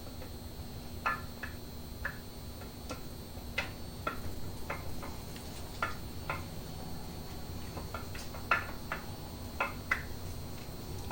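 Light, irregular metallic clicks and taps as the camshaft is worked out through the cam bearings of a Chevy LS 5.3 V8 block, metal touching metal. There are about fifteen clicks at uneven intervals, a few of them sharper than the rest.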